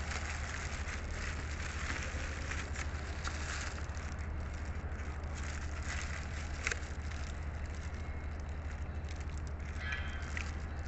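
Close-miked eating sounds: a steady crackle of chewing with scattered sharp clicks, over a constant low hum.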